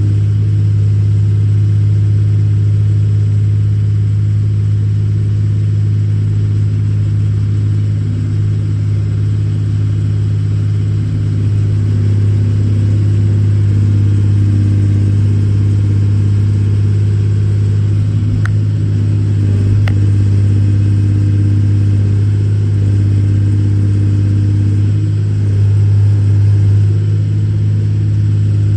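Case 125B excavator's diesel engine running steadily as it digs, a low steady drone that swells slightly near the end, with two faint clicks a little past the middle.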